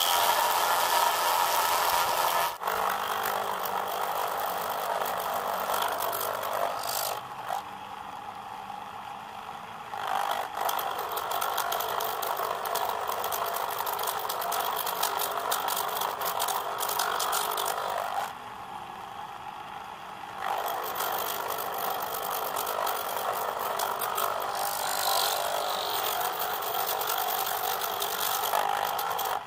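Homemade mini lathe turning a brass rod: its DC motor spins the three-jaw chuck while the cutting tool scrapes metal off the rod, a steady mechanical whirring grind. The noise falls quieter twice, for two or three seconds each time, then picks up again.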